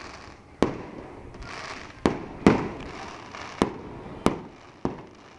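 Fireworks bursting: six sharp bangs at uneven intervals, each trailing off in an echo.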